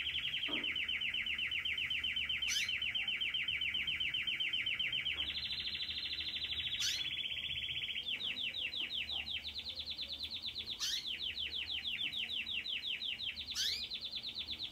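Young domestic canary singing one long, unbroken song of rapid rolling trills. About halfway through, the repeated notes slow down and space out, and a few quick rising sweeps are mixed in.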